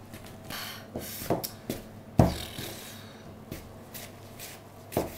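Spoon beating thick cake batter in a plastic mixing bowl: soft scraping and rubbing with irregular knocks of the spoon and bowl, the loudest about two seconds in.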